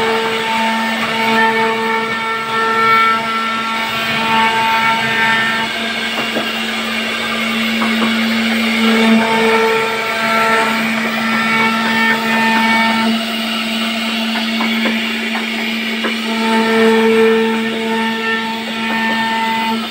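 CNC router spindle running steadily with the bit cutting into a wooden door panel, with a constant hum and a higher whine that comes and goes in stretches of a few seconds.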